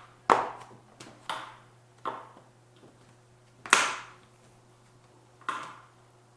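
Plastic bottom cover of a Lenovo Y700 laptop being pressed down, its clips snapping into place in a series of sharp clicks, about five spread over several seconds, the loudest about four seconds in.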